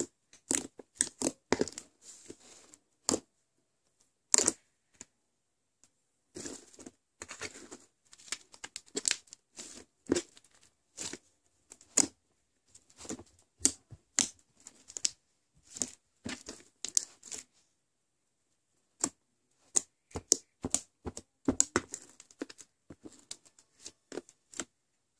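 Hands squeezing and kneading a large foam-bead slime, making irregular crackling pops and squelches in quick clusters, with a couple of short pauses.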